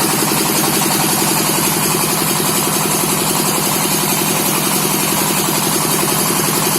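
Well drilling rig driven by an electric motor, running steadily: a constant hum with a fast, even rattling pulse.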